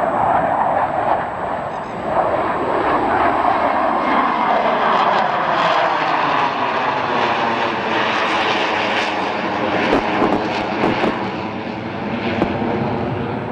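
Airplane engine noise from an aircraft flying past, loud and continuous, with a slowly sweeping whooshing tone as it moves across the sky.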